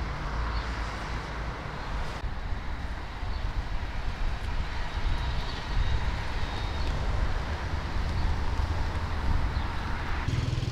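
Wind buffeting the microphone in gusts, over a steady wash of street traffic noise.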